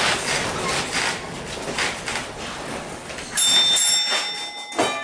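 Vintage streetcar rolling along its track with a rumbling, knocking running noise. Its bell is then struck twice, about three and a half seconds in and again near the end, each strike ringing on.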